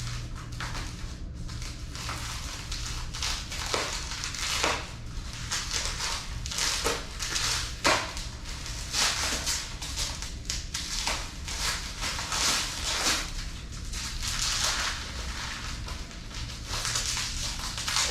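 Packaging being pulled off and crumpled by hand: a continuous run of irregular crinkling rustles, with a few sharper cracks along the way.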